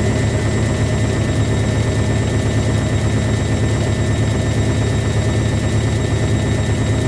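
Front-loading washing machine in a high-speed spin: a steady motor whine over a fast, even drum rumble and rattle.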